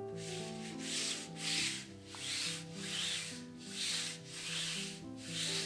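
A cloth scrubbing a shiny metal surface in regular back-and-forth strokes, about one and a half a second, over soft background music.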